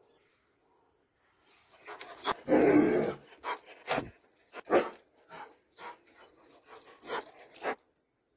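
Doberman vocalizing close to the microphone: one loud sound of nearly a second about two and a half seconds in, then a string of shorter, irregular sounds that stop shortly before the end.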